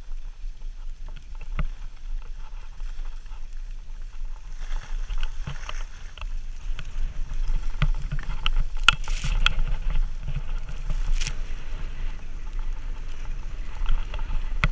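Skis hissing and scraping over snow on a downhill run, with wind rumbling on the microphone underneath. A few sharper scrapes of ski edges come past the middle.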